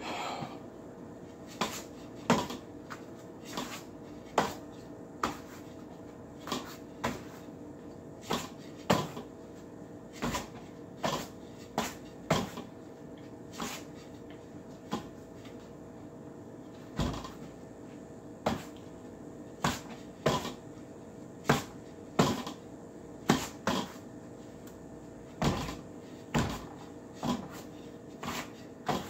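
A rattan ring knocking against the forearms and hands as it is worked through Wing Chun ring drills. The sharp wooden knocks come irregularly, about one or two a second.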